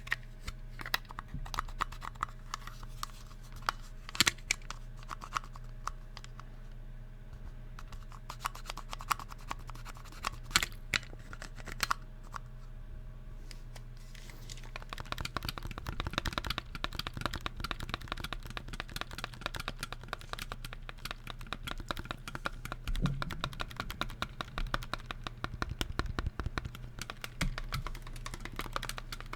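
Fingers tapping on the plastic shell of an Oculus Quest 2 VR controller: scattered taps, a few of them sharper, then from about halfway a fast, continuous run of tapping.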